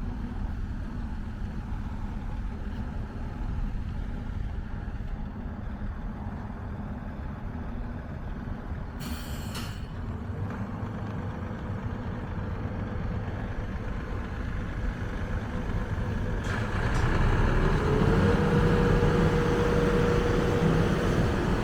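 Volvo EC480DL hydraulic excavator's diesel engine running, with a steady hydraulic whine coming in about ten seconds in as the machine works. A brief hiss comes just before it, and the engine and whine grow louder a few seconds from the end.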